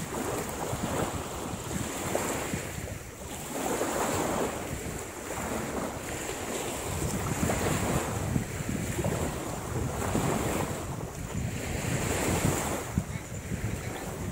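Wind buffeting the microphone over waves washing on a beach, the noise swelling and easing every couple of seconds.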